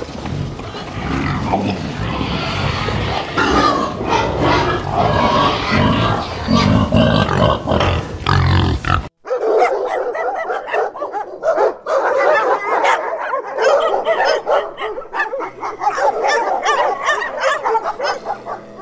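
Young domestic pigs grunting and squealing in a pen. About nine seconds in, a sudden cut to dogs barking and yelping in short repeated calls.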